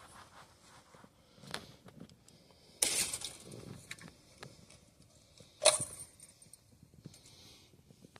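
Small metal parts and tools clinking and rattling as an electric guitar is taken apart: a few light clicks, a louder rattle about three seconds in, and a sharp clink shortly before six seconds.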